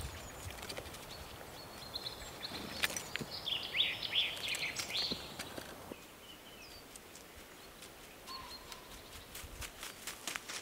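Small birds chirping outdoors, a busy cluster of quick high calls a few seconds in, over quiet rural ambience with scattered light clicks and taps that thicken near the end.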